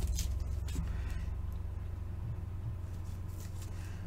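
Quiet room tone: a steady low hum, with a few soft clicks in the first second.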